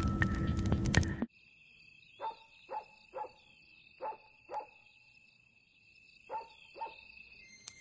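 Dog barking, seven short barks in two groups (five between about two and five seconds in, two near the end), over a steady high chirring of crickets or insects. Before that, a music track cuts off abruptly about a second in.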